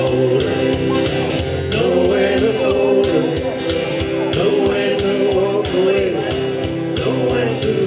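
Small live band playing a country song: acoustic and electric guitars strumming a steady rhythm, with a man singing over them.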